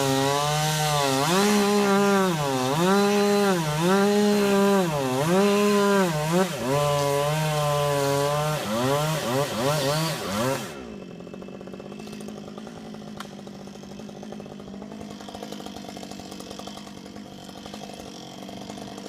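Chainsaw cutting at full throttle, its engine pitch sagging and recovering about once a second as the chain bites into the pine wood. About ten seconds in the throttle is released and the saw drops to a steady idle.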